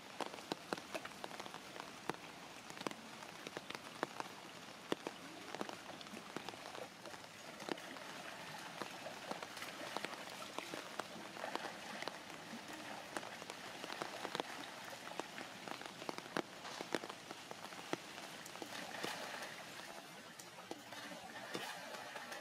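Rain falling on shallow floodwater: a steady hiss scattered with many sharp drop and splash sounds, along with macaques splashing through the water.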